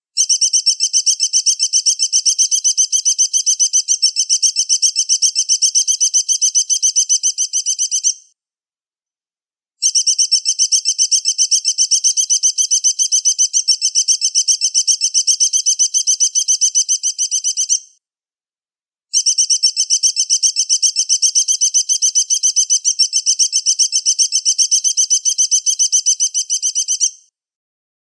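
Looped recording of an eagle's call used as songbird tutoring (masteran) audio: a high, rapid chittering trill in three runs of about eight seconds each, with breaks of about a second and a half between them.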